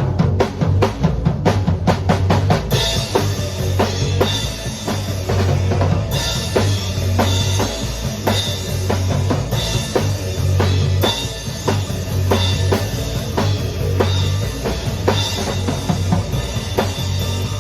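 Band rehearsing an instrumental passage: a steady drum beat over a repeating bass line. The sound fills out about three seconds in.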